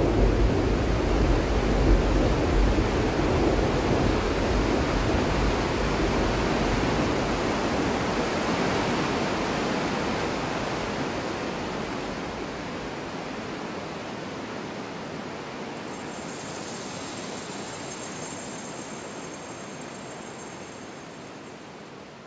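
Steady rushing roar of a large waterfall, loud at first and fading out gradually over the second half. A few faint, high, steady tones sound over it for several seconds near the end.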